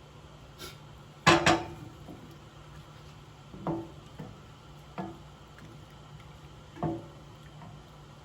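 A utensil knocking against a pan while stirring butter into a simmering pan sauce: a loud pair of clinks about a second in, then three more single clinks spaced a second or more apart, each with a short ring.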